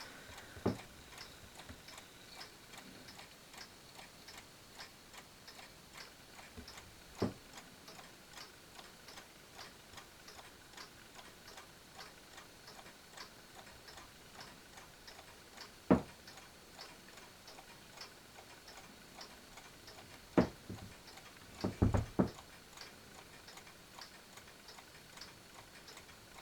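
Mantel clock ticking steadily and evenly, with a few louder knocks now and then.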